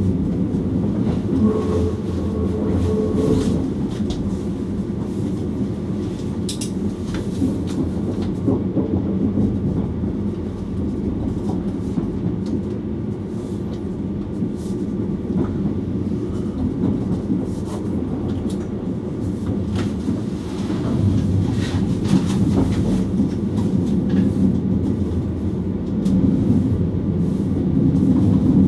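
Electric train running along the track, heard from inside the driver's cab: a steady rumble with scattered clicks from the wheels over the rails, a little louder about three quarters of the way in.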